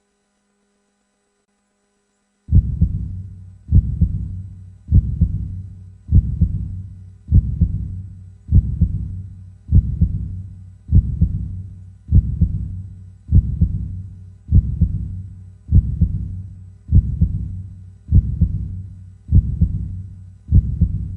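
Heartbeat sound effect: after a couple of seconds of silence, low, slow thumps beat steadily about once every 1.2 seconds, each one dying away before the next.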